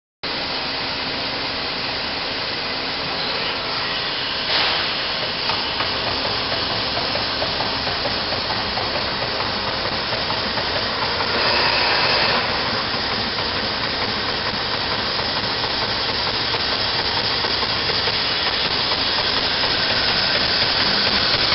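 Amada Vipros 255 CNC turret punch press running without punching: a steady mechanical rushing noise, with a brief louder surge about four and a half seconds in and a louder hiss for about a second near the middle.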